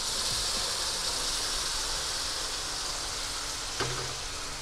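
Hot water poured into an iron kadhai of fried potatoes and peas in hot oil, bursting into a steady steam hiss that eases slowly. A small knock near the end.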